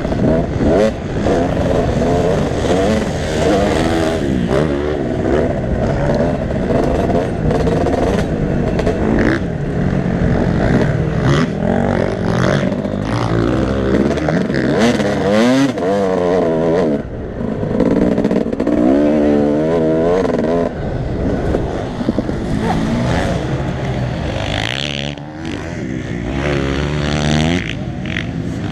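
Motocross bike engine being ridden hard, its pitch rising and falling over and over as the throttle opens and closes, heard close up from a helmet-mounted camera.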